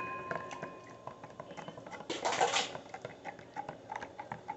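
A spoon stirring coffee in a cup, with light irregular clinks against the side. A short whine-like sound comes about two seconds in.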